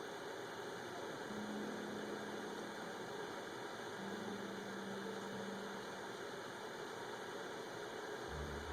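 Capresso H2O Plus cordless glass electric kettle heating water: a steady low hiss with a faint hum, the early stage of the boil before bubbling.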